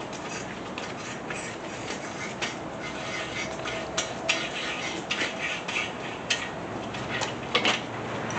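Hand tools working on a bare small-block Chevy 350 engine block while its bolt threads are chased: irregular metallic clicks and light scraping, busier in the second half.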